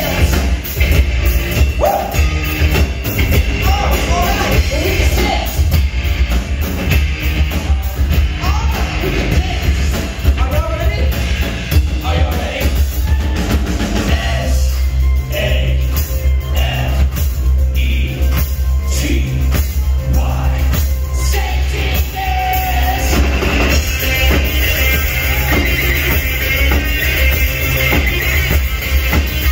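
Live rock band playing loud: a man singing over electric guitar and a drum kit, with a heavy low end.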